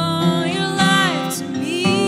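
Slow worship song: a woman singing long notes that slide in pitch, with a falling glide about a second in, over sustained instrumental chords.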